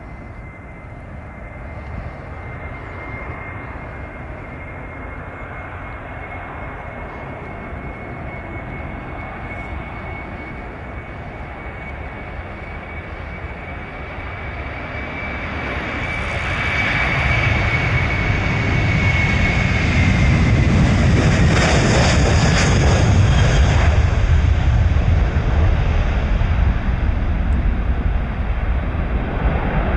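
Airbus A330's twin jet engines at takeoff thrust, building steadily as the airliner rolls down the runway. A thin high whine rises slightly and then drops in pitch as the plane passes. A loud, deep rumble follows as it lifts off and climbs away.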